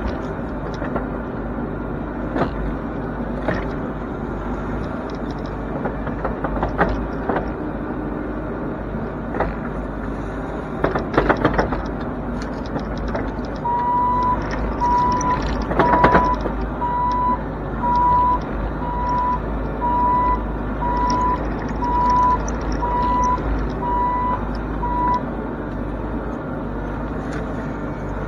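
Bobcat E42 mini excavator's diesel engine running steadily as the bucket and thumb work through brush, with sharp cracks and snaps of branches, a cluster of them about eleven seconds in and a loud one about sixteen seconds in. About halfway through, the machine's warning alarm starts beeping about once a second, a dozen beeps, then stops.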